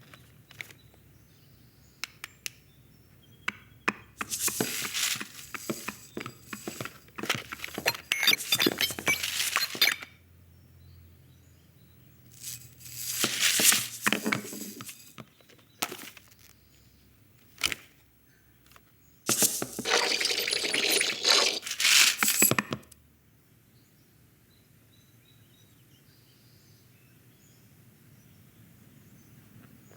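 Animated-film sound effects: three long bursts of scratchy, rustling noise, with sharp clicks and light clinks scattered among them.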